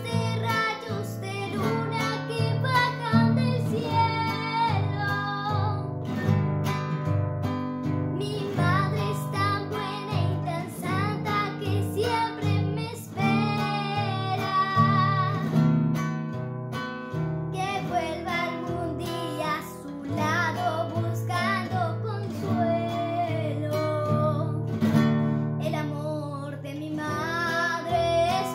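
A young girl singing a guarania, a slow Paraguayan song form, in a clear solo voice over acoustic guitar accompaniment with plucked and strummed chords.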